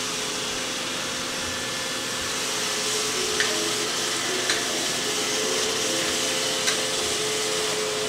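iRobot Roomba i7+ robot vacuum running, a steady whirring hiss from its suction fan and brushes, with three light clicks partway through.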